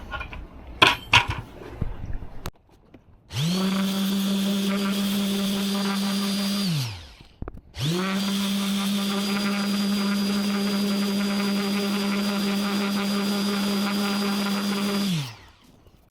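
Small handheld electric sander smoothing the edge of a cut plexiglass piece. A few sharp clicks come first, then the motor runs at a steady pitch twice: a short run of about three seconds, then a longer one of about seven. It spins up at the start of each run and winds down at the end.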